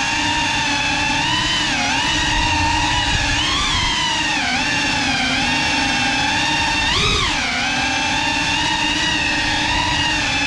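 GEPRC CineLog35 3.5-inch cinewhoop's brushless motors and propellers whining, the pitch rising and falling with the throttle, with a sharp upward swing about seven seconds in.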